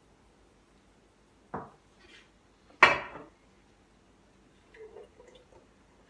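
Kitchen dishes handled on a counter: a dull knock about one and a half seconds in, then a louder, sharp clink with a short ring a little over a second later, and a few faint small clinks near the end.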